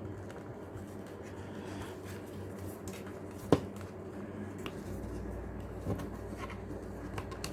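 Small clicks and scrapes of aquarium air pump parts being handled and slid back into the pump housing, with one sharp click about three and a half seconds in, over a steady low hum.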